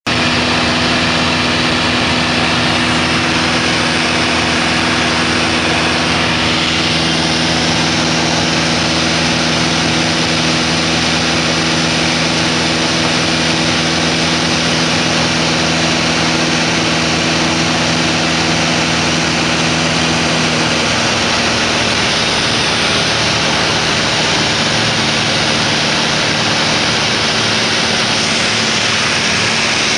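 Light propeller aircraft's piston engine and rushing airflow heard from inside the cabin: a steady, loud drone with a low hum under a broad hiss. The hum's tone changes about two-thirds of the way through, with some of its lower notes dropping out.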